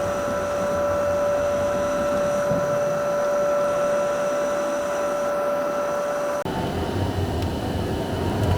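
Jet airliner engine noise heard from inside the cabin: a steady whine over a constant hum. About two-thirds of the way through it switches abruptly to a rougher, deeper rumble that grows louder near the end.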